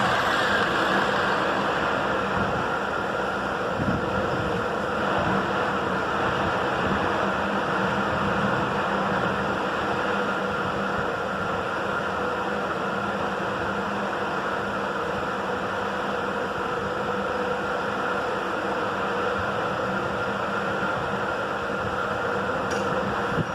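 A power tool's electric motor running steadily, with a continuous hiss and a constant hum.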